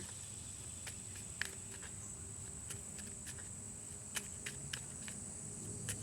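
Tarot cards being handled: a dozen or so soft, irregular clicks and taps over a steady low background hum.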